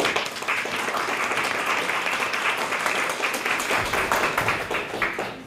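Audience applauding: dense clapping that starts at once and dies away near the end.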